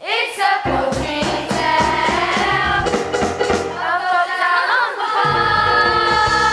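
A show tune sung by a group of voices with instrumental accompaniment; about five seconds in they settle onto a long held chord.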